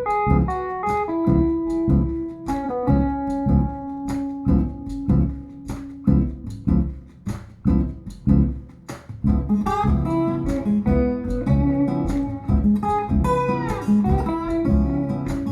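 Guitar-led music with bass and a steady beat, played back through B&W DM603 S3 floorstanding speakers driven by a Sony TA-F490 integrated amplifier and heard in the room.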